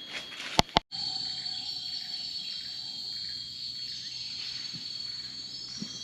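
Steady high-pitched chorus of rainforest insects. Two sharp clicks come just under a second in, just before the chorus settles in.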